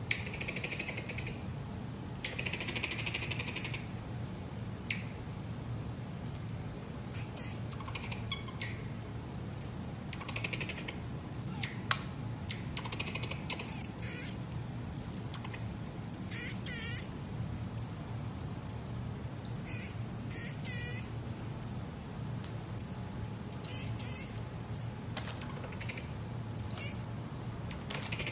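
Marmoset giving many short, high-pitched chirps and squeaks, with a few quick wavering trills, and an occasional sharp click.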